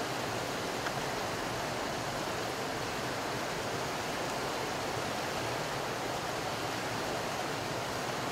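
Steady rush of flowing water, even and unbroken, with no distinct calls or splashes.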